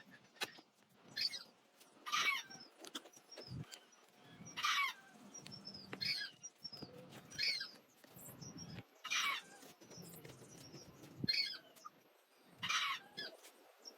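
Repeated scraping strokes of a hand tool on wood, about eight in all, one every second or two, each a short hiss that falls in pitch.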